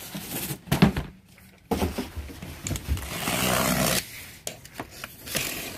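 Large cardboard box being handled and moved onto a work surface: a few knocks in the first second, then about two seconds of scraping, and a few light knocks near the end.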